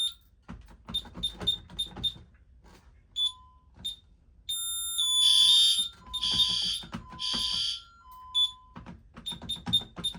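Alarm keypad's built-in piezo sounder beeping for a fire alarm, with three longer, louder pulses in the middle, a temporal-three pattern. Short key-press beeps with soft button clicks come in quick runs before and after.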